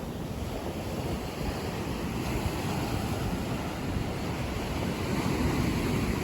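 Sea surf washing steadily onto a beach, with wind buffeting the microphone, growing a little louder in the second half.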